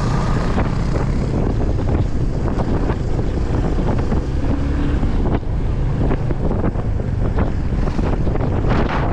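Strong dust-storm wind buffeting the microphone over the steady low rumble of a moving vehicle, with many short crackles that come thicker near the end.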